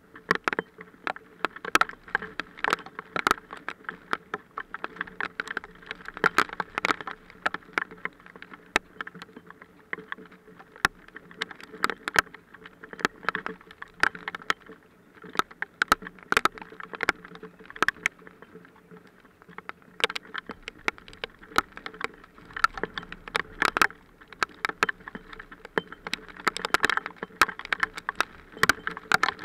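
Hailstones striking close by in a hailstorm: a dense, irregular run of sharp clicks and ticks, some much louder than others, over a steady low hum.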